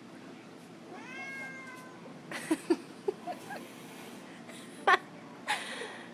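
A cat meows once, about a second in, a rising call held briefly, during rough play with a dog. Several short knocks and scuffles follow, with one sharp knock, the loudest sound, near the end.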